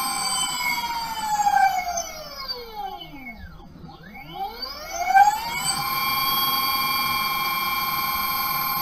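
Electric hub motor on a jacked-up ATV wheel spinning freely under a Fardriver controller's self-learning routine: a steady whine with several tones. About a second and a half in the whine falls in pitch as the wheel slows to a stop, and it rises again about four seconds in as the controller spins the motor back up the other way, then holds steady.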